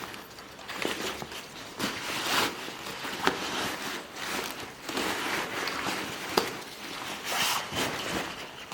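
Footsteps on a hiking trail, irregular steps about one every half second to second, with a couple of sharper clicks about three seconds in and again near six and a half seconds.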